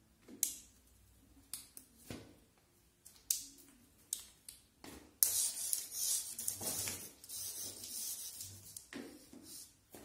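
Kittens pouncing at a wand toy: short scratchy rustles and taps, then a few seconds of dense hissing rustle starting about five seconds in.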